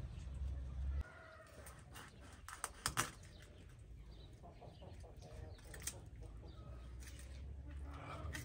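Chickens clucking, with a few sharp clicks about three seconds in; a low rumble of wind on the microphone stops about a second in.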